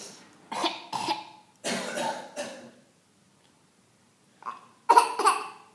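A small boy coughing in short runs, mimicking his father's cough: a few coughs in the first half, a pause of about a second and a half, then a louder run of coughs near the end.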